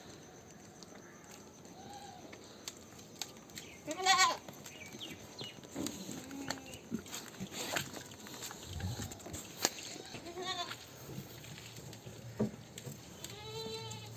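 Goats bleating: one loud bleat about four seconds in, a fainter one near two seconds, and more near ten seconds and near the end, with scattered short knocks in between.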